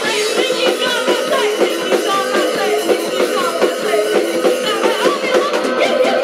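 Live rock band playing loudly: drum kit, electric bass and guitar, with a woman singing into the microphone.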